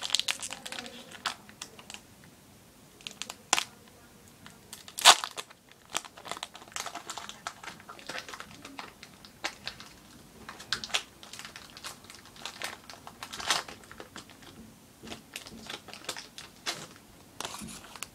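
Foil-lined trading-card booster pack wrapper crinkling and tearing as it is worked open by hand, in irregular crackles with one sharp, loud crackle about five seconds in.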